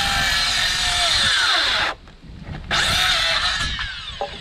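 Cordless circular saw cutting through a wooden plank: a loud run of about two seconds, a short break, then a second, shorter run, and the motor's whine falls away as the blade spins down near the end.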